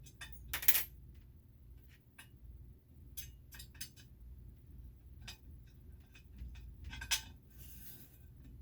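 Irregular clinks and clicks of small metal objects being handled, the loudest about a second in and again near the end, over a steady low hum.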